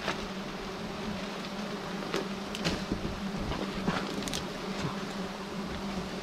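A swarm of giant honeybees buzzing as a steady, even hum, with a few short sharp taps scattered through it, the loudest about four seconds in.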